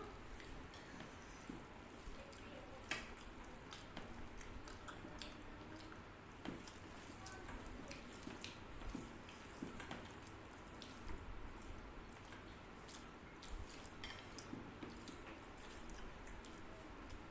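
Two people eating rice and curry by hand: small wet squishes and clicks from fingers mixing rice on the plate and from mouths, one sharper click about three seconds in.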